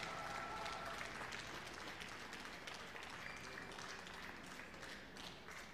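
Faint audience applause, slowly dying away.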